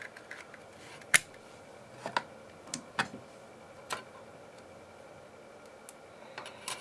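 Scattered sharp clicks and taps from hands working on a bare laptop motherboard, seating a RAM module in its slot and handling a small connector board, the loudest click about a second in. A faint steady hum runs underneath.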